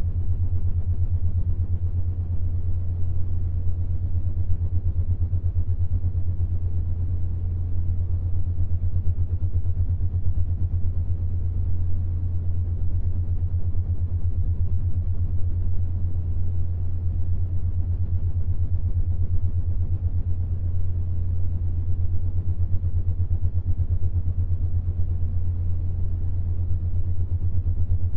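Steady low humming tone of a binaural-beat track tuned to the 7.83 Hz Schumann resonance, with a fast, even pulsing in it and a faint hiss above.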